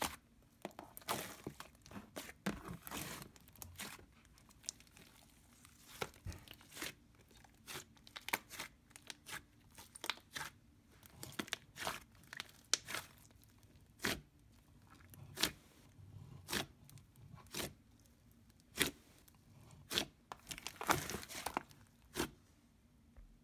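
A large batch of mixed slime being kneaded and stretched by hand, giving sharp sticky pops and crackles at irregular intervals, some in quick clusters.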